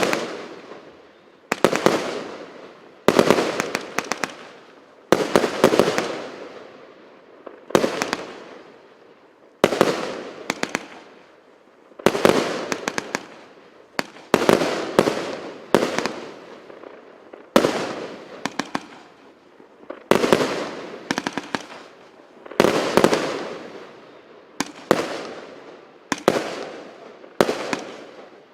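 A 128-shot, 25 mm multi-shot fireworks battery (cake) firing. About fifteen volleys come roughly every two seconds, each a cluster of sharp bangs followed by a fading crackling tail.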